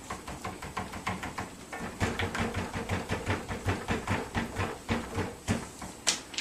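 Homemade cable-flexing test rig working an HDMI cable back and forth, an even knocking of about four strokes a second. A brief hiss near the end.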